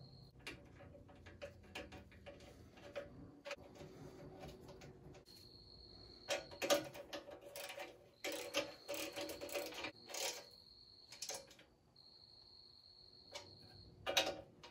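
Clicks, taps and small metallic rattles of hand work fastening a license plate light into a new chrome rear bumper, with several short runs of rapid clicking in the second half.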